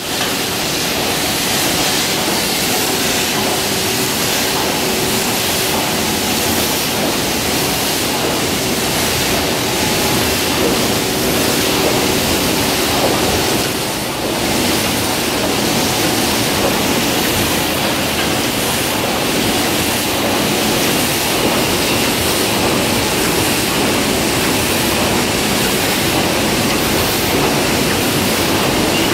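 Steady loud rushing machine noise from running tin-plate printing machinery. A faint steady hum tone sits under it for several seconds early on, and the noise dips briefly about halfway through.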